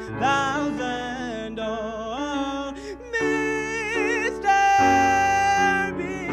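Song with a singing voice holding long, wavering notes without clear words over instrumental backing, with one long held note about five seconds in.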